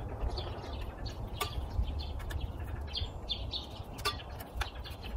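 Small birds chirping over and over, with a few sharp clicks and knocks from metal frame tubes being fitted into plastic corner connectors, over a low wind rumble on the microphone.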